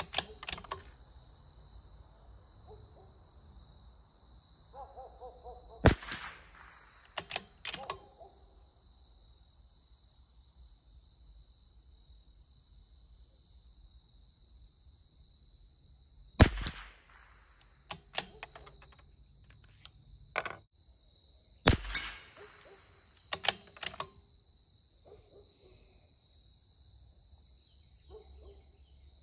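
Three .22 LR shots from a CZ 457 Varmint bolt-action rifle, the first about six seconds in, the next about ten seconds later and the last about five seconds after that. Each shot is followed within a second or two by a quick run of metallic clicks as the bolt is worked to eject the case and chamber the next round. A steady high thin tone runs underneath.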